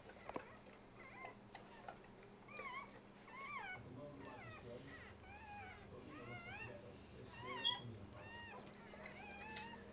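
Newborn Dogue de Bordeaux puppy squeaking: short, high, wavering cries that rise and fall in pitch, about two a second.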